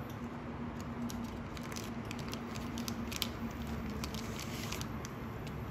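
A scatter of small, sharp wet clicks and taps from wet hands working at a bamboo cutting board while making dumplings, thickest in the middle, over a steady low hum.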